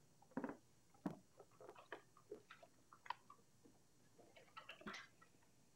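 Faint, scattered clicks and light rustling as small items are handled.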